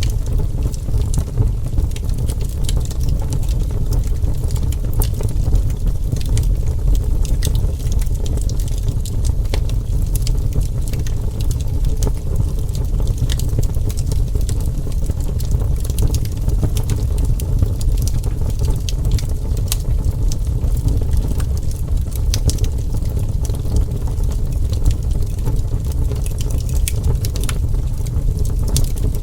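Wood fire burning, with a steady low roar and frequent sharp crackles and pops of burning wood.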